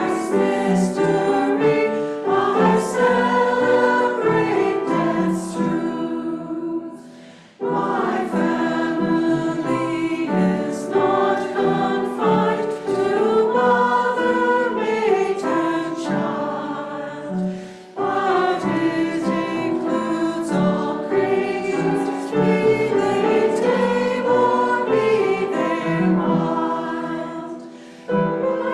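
Congregation singing a hymn together with instrumental accompaniment, in long phrases with a brief dip between them about every ten seconds.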